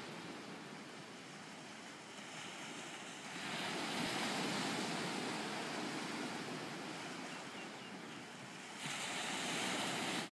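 Small waves breaking and washing up on a sandy beach: a steady rush of surf that swells louder about three and a half seconds in and again near the end, then cuts off suddenly.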